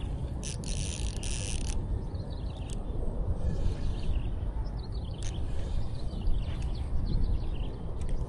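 Wind rumbling on the microphone, with a short hissing burst about half a second in and a few faint clicks.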